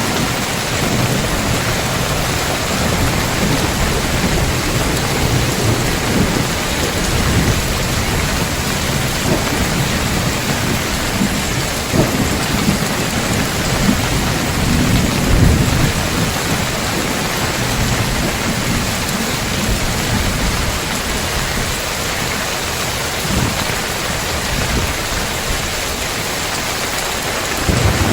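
Heavy rain pouring on roof tiles in a steady hiss, with thunder rumbling underneath; a sharp crack about twelve seconds in and a stronger rumble a few seconds later.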